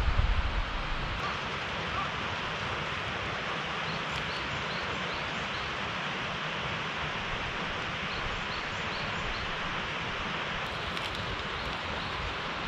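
Steady, even rushing outdoor noise, with a low wind rumble on the microphone in the first second and a few faint high chirps in the middle.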